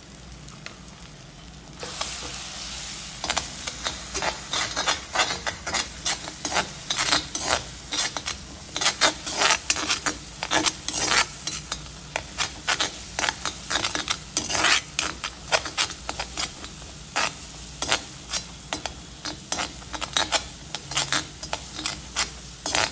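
Perforated steel ladle stirring and scraping an onion-tomato masala around a kadai, its metal strokes against the pan coming irregularly a few times a second over the sizzle of oil, starting about two seconds in. The freshly added chilli, coriander and turmeric powders are frying in the oil to cook off their raw flavour.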